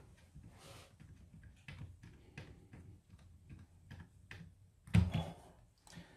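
Small plastic clicks and ticks from a camper's control panel unit being handled and pressed together on a wooden table, with one louder knock about five seconds in.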